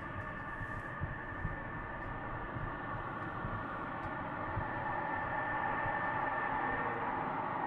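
F-22 Raptor's twin Pratt & Whitney F119 turbofan engines at taxi power: a steady jet whine over a rushing roar, growing slowly louder as the jet rolls closer.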